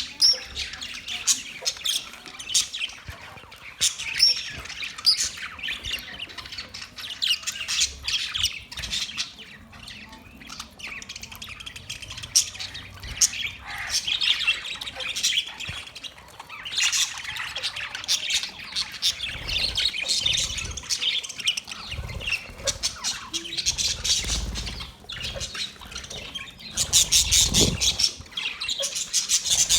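Pet parrots squawking and chirping in a steady run of short, harsh calls, with a quick rattling burst of calls near the end.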